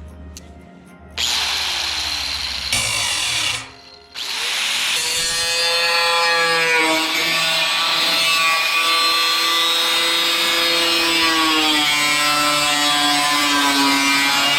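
Angle grinder cutting a sheet of rusty metal: loud grinding hiss that starts about a second in and stops briefly near four seconds. After that comes a sustained high whine whose pitch sags and recovers as the wheel bites.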